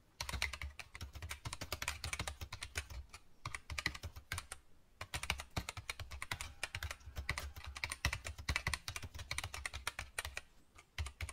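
Keyboard typing: rapid, irregular key clicks, with short pauses about three seconds in and again about four and a half seconds in.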